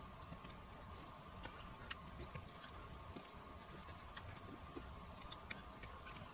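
Faint, scattered small clicks and ticks of a screwdriver and small parts being handled while a lamp board is screwed into a cassette deck's front panel, over a faint steady hum.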